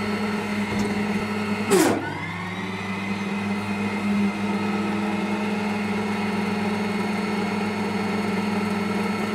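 Electric micro loader's motor and hydraulics running under strain, a steady electric whine over a hum. About two seconds in there is a brief loud surge where the pitch drops sharply and then climbs back, as the machine works against a load of utility poles beyond its rated 880-pound capacity.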